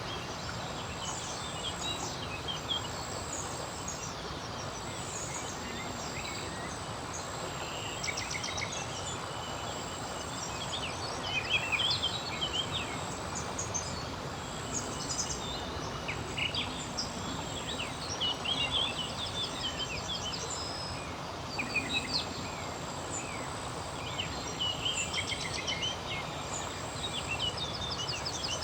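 Outdoor riverside ambience: a steady rushing background with small birds chirping and twittering on and off, in short clusters of quick notes, plus a thin high insect-like trill that comes and goes.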